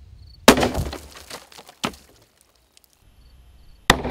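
Sharp 10mm pistol shot from a Glock 40 about half a second in, and a second loud bang near the end as the bullet bursts a row of water-filled plastic jugs.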